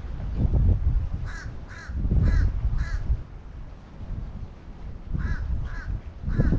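A crow cawing in short runs: four caws about half a second apart, then three more a couple of seconds later, over a low rumble.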